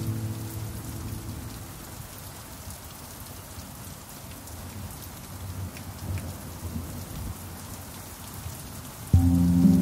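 Steady rain falling. The last pan drum notes fade out in the first couple of seconds, then rain alone, and about nine seconds in the pan drum is struck again, several notes ringing together.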